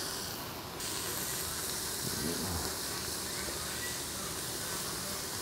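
Slices of marinated beef sizzling gently in a nonstick pan over low heat as they are turned with chopsticks: a soft, steady hiss. A faint brief voice about two seconds in.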